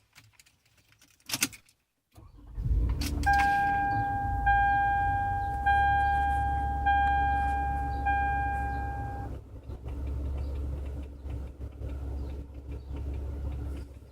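A click, then a car engine starting about two seconds in and settling into an idle. Over it a warning chime rings five times, about once a second, then stops, and the engine keeps idling.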